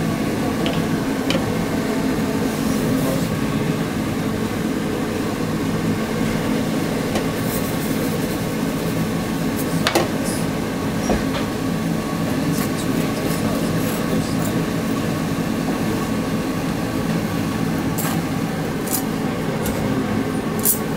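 A steady mechanical hum fills the room without a break, with a few light clicks and taps over it, the sharpest about halfway through and several near the end.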